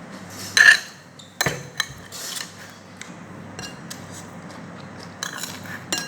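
Cutlery clinking and scraping against a plate while eating, with a loud ringing clink about half a second in and more clicks and short scrapes after it. A low steady hum runs underneath.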